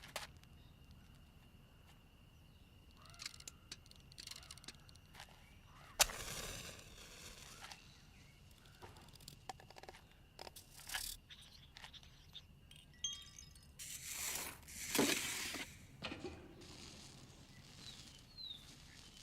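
A string of separate game sound effects: scattered clicks and chime-like tones over a faint steady high tone, a sharp hit about six seconds in that rings on for a second or two, and a louder rushing burst of noise around fifteen seconds.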